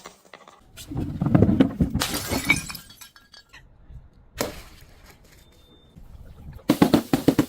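Glass breaking and crunching in separate bursts: a long crunching stretch about a second in, a short crack in the middle, and a quick cluster of cracks near the end.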